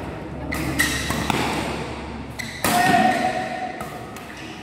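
Badminton rackets striking a shuttlecock in a fast doubles rally: a string of sharp hits, the loudest about two and a half seconds in.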